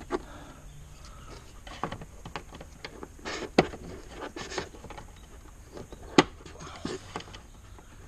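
Hand work on a car's plastic interior trim and its fasteners: scattered clicks, taps and short rustles, with one sharp click about six seconds in.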